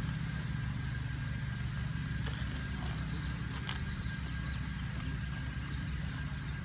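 A steady low engine rumble with a faint, steady high whine over it, and a couple of light clicks around the middle.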